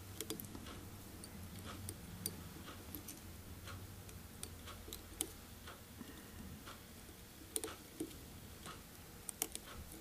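Faint, irregular small clicks and ticks of fingers and tying thread as a whip finish is made on a fly in a fly-tying vise, over a low steady hum.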